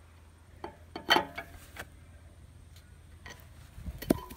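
Several separate sharp metal clanks and knocks from a steel engine hoist being shifted. The loudest comes just after a second in, and another near the end rings briefly.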